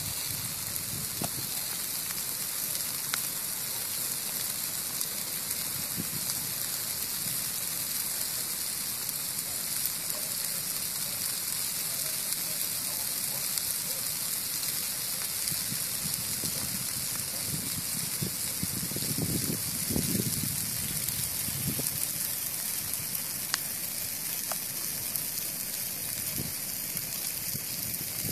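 Cutthroat grass burning: a steady crackling hiss from the flame front with scattered sharp pops.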